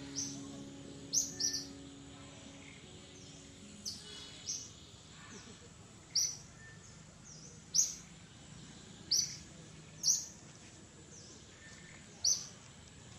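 A forest bird giving short, sharp, high-pitched chirps, one every second or two, with fainter calls in between, over a faint steady background hiss.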